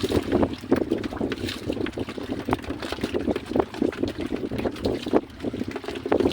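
Wind buffeting the microphone over irregular water splashing and sloshing, in uneven gusts and slaps.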